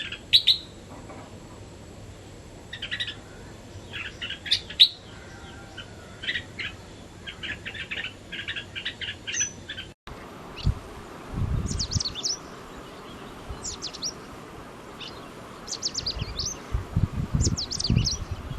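Small birds chirping and calling in quick runs of short, high notes, in two stretches with a brief break about ten seconds in. A low rumble comes in briefly after the break and again near the end.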